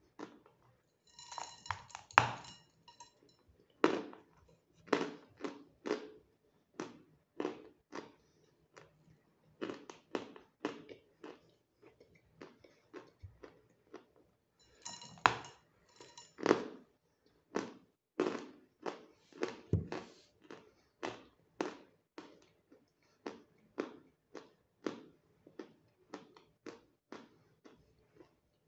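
Hard natural Phoenix chalk being bitten and chewed: a cluster of crisp, ringing snaps as a piece is bitten off about two seconds in and again about fifteen seconds in, each followed by steady chewing crunches about two a second.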